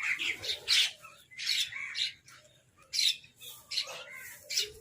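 Crows giving a rapid series of harsh, rasping caws, several birds calling over one another. The loudest calls come in the first second, with shorter ones following at irregular intervals.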